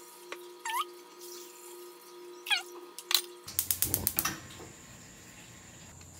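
A gas stove's electric igniter clicking rapidly for under a second as the burner is lit, about halfway through. Before it, a steady hum with two short, high, falling chirps.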